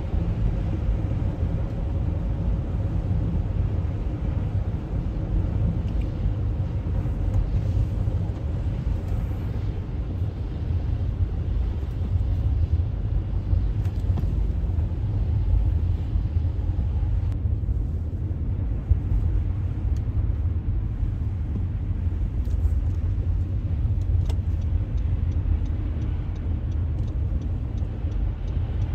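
Steady low road rumble of a car driving on a snow-covered highway, heard from inside the car.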